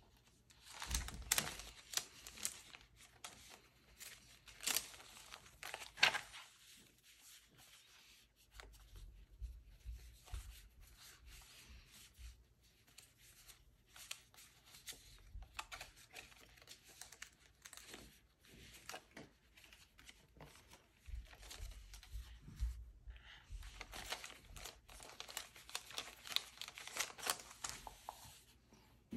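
Paper and plastic being handled on a desk: sharp crackling, tearing and crinkling as small photo prints and stickers are sorted and peeled. Loudest in the first few seconds and again near the end, with quieter rustling in between.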